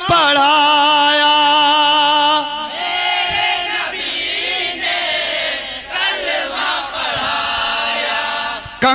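Men singing a naat: a single lead voice holds a long, wavering sung note, then from about two and a half seconds in a group of men sings together in chorus.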